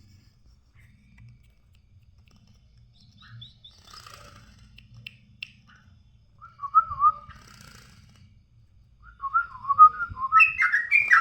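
Yellow-vented bulbul (trucuk) singing: scattered chirps, then a short bubbly warbled phrase about halfway through and a louder run of warbled phrases near the end.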